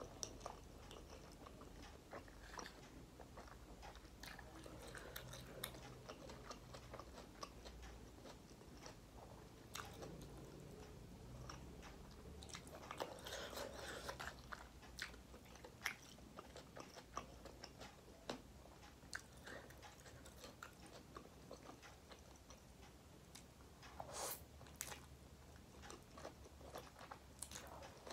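Faint close-up chewing and slurping of instant noodles, with many small wet mouth clicks and smacks. Two longer, louder slurps come about halfway through and shortly before the end.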